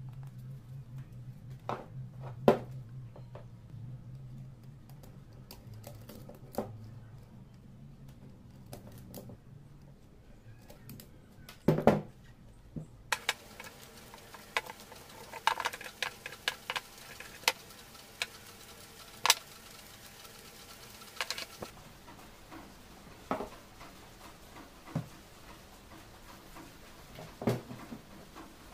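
Wooden blocks being handled on a wooden table: scattered knocks, taps and clacks as glued segment stacks are picked up, banded with rubber bands and set down, with a faint steady low hum under the first few seconds.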